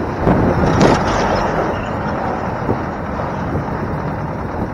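Steady road noise of a moving truck, heard from its open back, with a brief louder rush about a second in.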